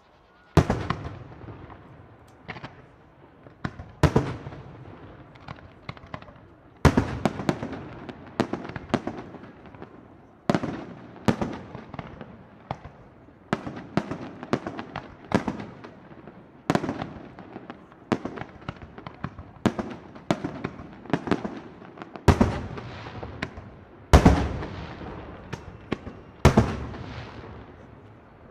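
Aerial firework shells bursting one after another, a sharp bang every second or two, each trailing off in echo, with smaller pops between.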